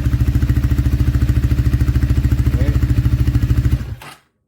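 Rusi Cyclone 400cc motorcycle running steadily through its stock dual exhaust pipes, an even, throaty pulsing beat. It stops suddenly near the end.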